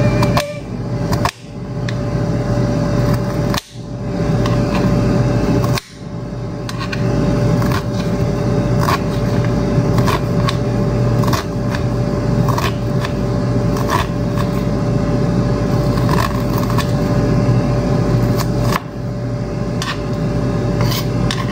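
Kitchen knife chopping a red onion on a glass cutting board: sharp, irregular clicks about once a second as the blade strikes the glass, over a steady hum.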